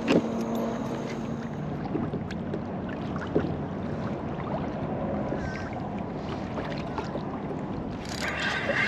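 Steady wind on the microphone and water lapping against a kayak hull, with a few light clicks and knocks. Near the end a steady whirring starts from the spinning reel as a hooked fish bends the rod.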